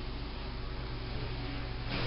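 Steady low electrical hum under an even hiss: the background drone of a barn. The hiss grows louder near the end.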